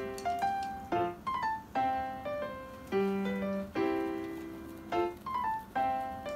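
Background piano music: a light tune of struck notes that fade out, in a pattern that repeats about every two seconds.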